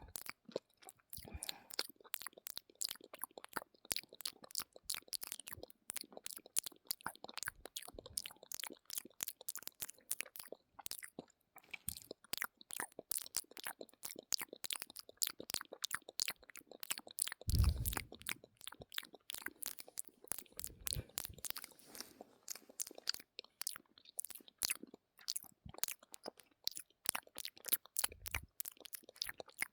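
ASMR mouth sounds: a fast, irregular run of mouth clicks, several a second, with a louder low thump about 17 seconds in.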